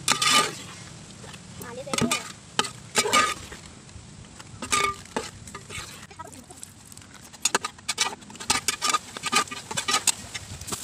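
A metal ladle stirs thick, bubbling fruit payasam in a metal pot, scraping and clinking against the pot's sides and bottom again and again. Some strokes ring briefly, and the strokes come faster near the end. The payasam is being cooked down until thick.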